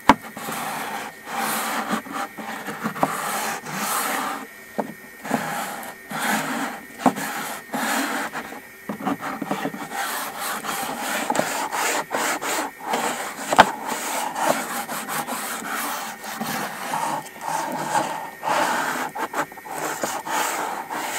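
Hand sanding block rubbed back and forth over a freshly CNC-resurfaced wooden spoil-board table, knocking off the fuzz left by the cutter. Short scraping strokes with brief pauses, and one sharp knock about two-thirds of the way in.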